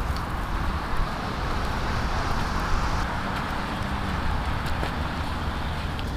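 Steady outdoor background noise, a rushing hiss with a low rumble of wind on the microphone.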